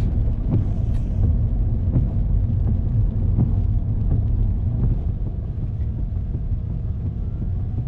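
A car driving on a rain-soaked road, heard from inside the cabin: a steady low rumble of tyres and engine, with faint scattered ticks.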